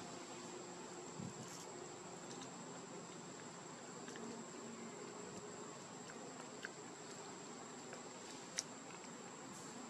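Faint outdoor insect drone: a steady high-pitched whine over a low buzzing hum. A few soft clicks, with one sharp click a little before the end.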